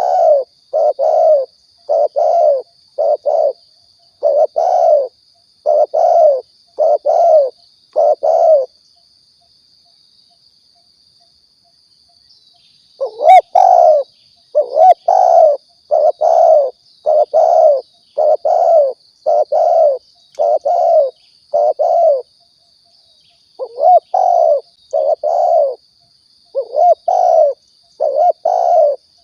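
Spotted dove (tekukur) cooing: a run of short, low coo notes about two a second, used as a lure call. The coos stop for about four seconds in the middle, then start again, with a thin steady high whine underneath throughout.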